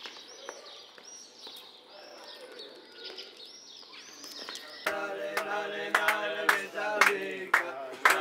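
Birds chirping, a quick run of repeated rising-and-falling calls. About five seconds in, music with a sharp percussive beat cuts in abruptly and becomes the loudest sound.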